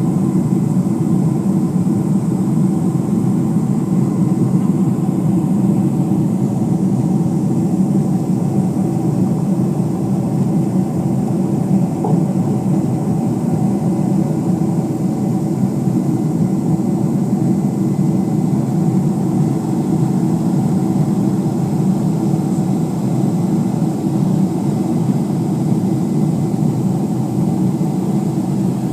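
Jet airliner cabin noise: a steady drone of engines and airflow heard from inside the passenger cabin, with a few faint steady whines above it.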